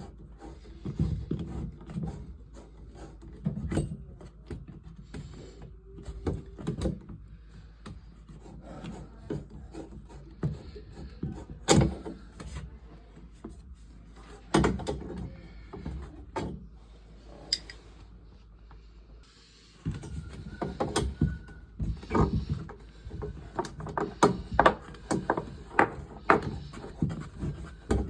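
Irregular knocks, clicks and scraping from tools and parts being handled during plumbing work, with sharper knocks about 12 and 15 s in and a dense run of them in the last several seconds.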